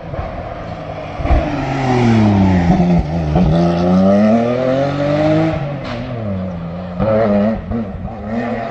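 Rally car on a closed stage, its engine dropping in pitch as it brakes into a junction, then rising again as it accelerates away through the gears with short breaks at the gear changes. Two sharp cracks cut through as it slows.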